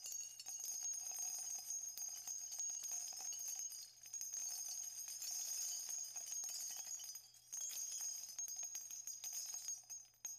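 Faint, high-pitched jingling and tinkling, dropping out briefly twice.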